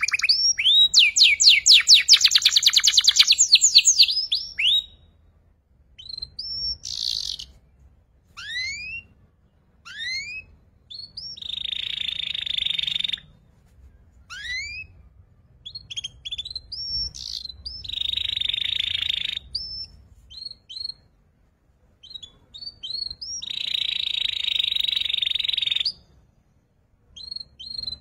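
Young canary still learning its song: a fast trill of rapidly repeated up-sweeping notes at the start, then single rising chirps broken by pauses, and several buzzy trills held for one to two seconds each.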